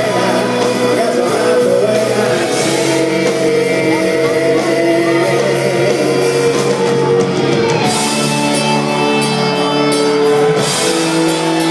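A live rock band playing loudly with a singer, heard in a large concert hall.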